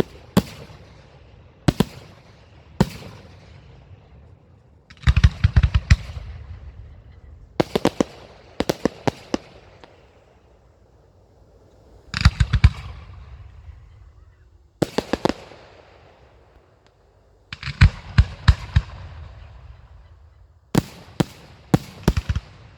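Fireworks display: volleys of sharp firework bursts in clusters every two to three seconds, several bangs in quick succession each time, each cluster trailing off in a fading rumble and crackle.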